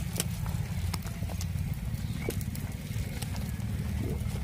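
Cattle moving about on a dirt yard: scattered light hoof clicks and knocks over a steady low rumble.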